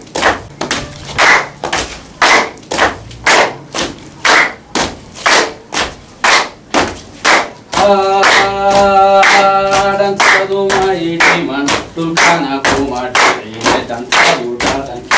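Rhythmic hand clapping for a Somali traditional folk dance, about two claps a second, with a singing voice holding a long chanted note from about eight seconds in for some three seconds.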